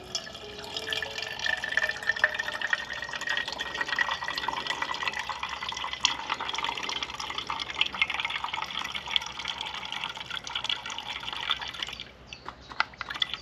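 Methylated spirit (denatured alcohol) being poured from a bottle into a Trangia spirit burner, a steady splashing, glugging pour with a faint tone that rises slowly as the burner fills. The pour stops about twelve seconds in.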